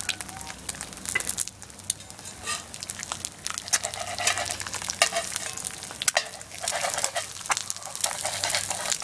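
Eggs frying in a black skillet over a small wood fire: a steady sizzle with frequent sharp crackling pops, and a slotted spatula moving in the pan.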